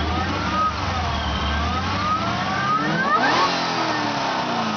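Supercharged 2010 Chevrolet Camaro engine revved once. The whine climbs in pitch with the revs from about two seconds in, peaks just past three seconds, then falls back toward idle.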